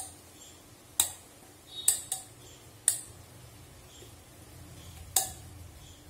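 Stainless-steel cake pot tapped in the hands as it is turned to spread a flour dusting over its greased inside: about six sharp metallic ticks, two of them close together about two seconds in.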